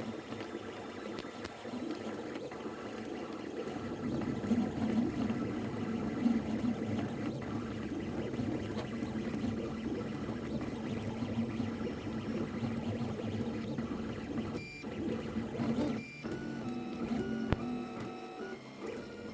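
Anet A8 3D printer running a print, its stepper motors whining and humming as the head and bed move, the pitch stepping up and down with each move and with brief pauses near the end.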